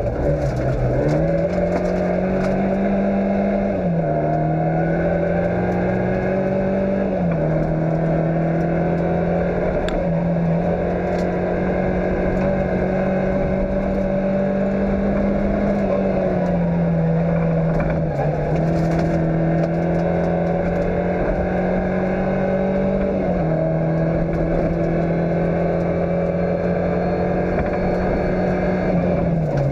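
Fiat Cinquecento rally car's engine running at high revs on a gravel stage, heard from inside the car. The pitch holds steady, then drops suddenly several times, as at gear changes, over a constant rumble of tyres and gravel.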